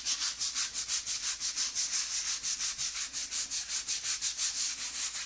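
Small hand scrub brush scrubbing a rough, wet plastered wall to strip off green algae and black mould, in quick, even back-and-forth strokes, about five or six a second.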